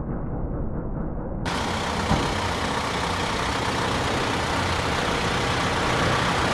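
A motor vehicle engine runs steadily under general street traffic noise. The sound is muffled for the first second and a half, then suddenly turns bright and hissy.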